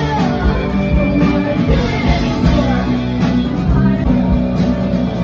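Live rock band playing loudly with guitars, drums and singing; "really loud".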